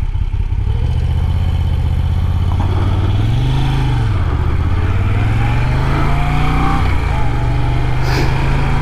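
2021 Moto Guzzi V7 Stone's 853 cc air-cooled V-twin running under way. The revs swell up and fall back briefly about three and a half seconds in, then climb steadily and drop off sharply near seven seconds in before holding steady.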